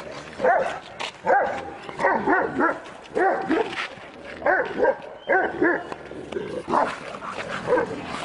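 Kangal shepherd dog barking in a rapid, irregular series of short barks, about one or two a second.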